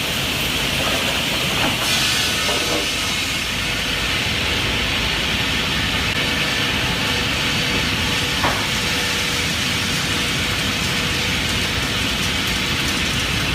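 Sawmill machinery running: a steady, even mechanical noise with a few faint knocks in it.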